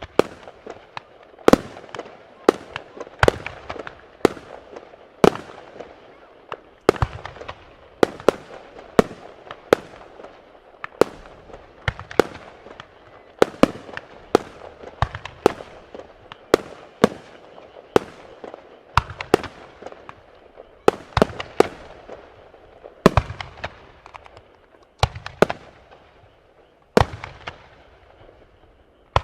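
Aerial fireworks bursting in quick succession: sharp bangs roughly one to two a second, each trailing off in echo.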